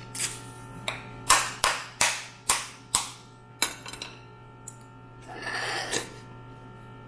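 Steamed mud crab shell being cracked open: a run of sharp cracks and snaps over the first few seconds, then a brief crunching rustle.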